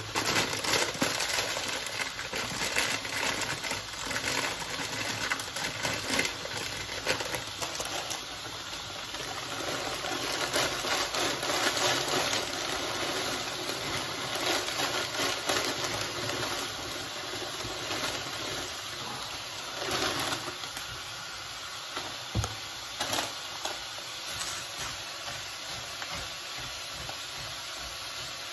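A pot of water at the boil, with the crinkle and rustle of a plastic noodle bag being handled and dry noodles being poured into the pot.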